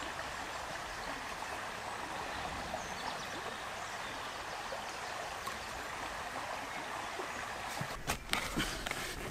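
Steady rush of running water in woodland; about eight seconds in, a few sharp strikes and scrapes of a long-handled digging tool biting into soil.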